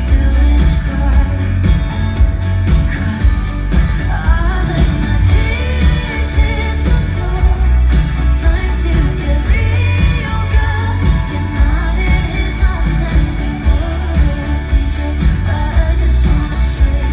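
Live pop song performed by a band with a woman singing over heavy bass and a steady drum beat, heard from the concert floor.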